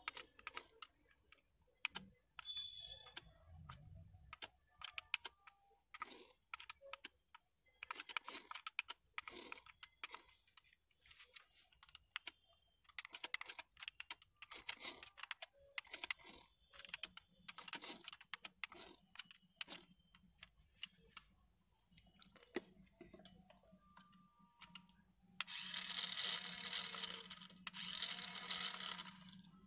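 Small electric drive motor and plastic gears of a Majorette 1:24 radio-controlled Mercedes SLS AMG toy car, whirring and clicking faintly in short spurts as it is driven in stops and starts on a wooden board. Two louder bursts of whirring come near the end.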